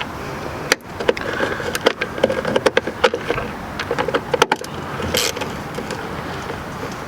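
Ratchet with a 7mm socket loosening the taillight assembly's screws: short runs of rapid clicking as the ratchet is swung back and forth.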